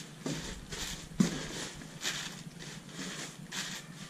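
Crumpled packing paper rustling and crinkling in short, irregular scrunches as an item is unwrapped by hand, with one sharper knock about a second in.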